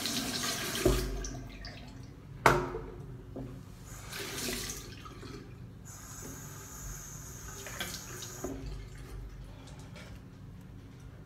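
Bathroom sink tap turned on and water running into the basin in spurts, with a steadier run of a couple of seconds near the middle. A single sharp knock on the counter comes about two and a half seconds in.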